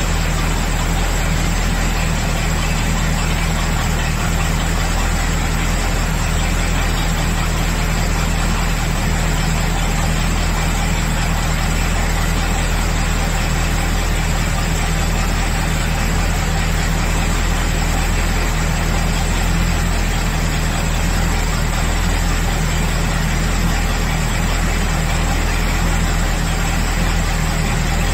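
Engine idling steadily at an even speed, with a deep, unchanging hum.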